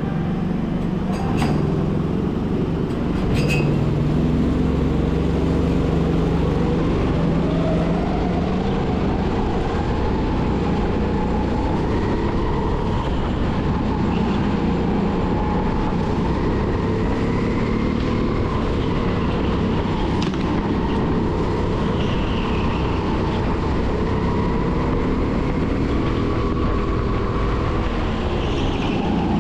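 270cc kart engine heard from the driver's seat, running hard, its pitch rising and falling as the kart accelerates and slows through the lap. A couple of sharp clicks in the first few seconds.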